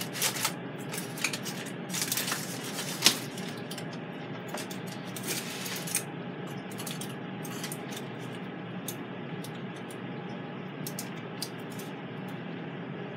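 Metal rotisserie forks and their set screws clinking and clicking, with aluminium foil crinkling, as the forks are unscrewed and worked loose from a cooked pork tenderloin. The clicks are busiest in the first three seconds, with one sharp click about three seconds in, then come sparser.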